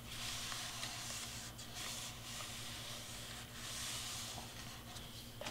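Quiet steady hiss and low hum with faint soft rustles of hands and cardstock on a craft cutting mat.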